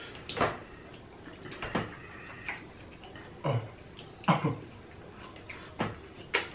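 Close-up eating sounds: a string of short, wet mouth smacks and chews, about seven over six seconds, while shrimp are being eaten and peeled.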